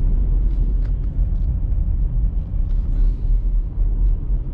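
Steady, deep rumble of a car's engine and tyres heard from inside the cabin while driving.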